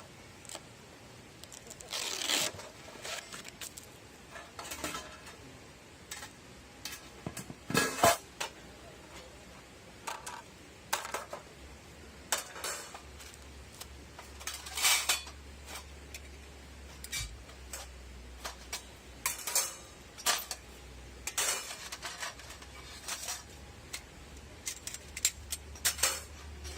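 Metal parts of a flat-pack wood stove clinking and clanking as they are handled and set down, in irregular scattered knocks, the loudest about eight seconds in.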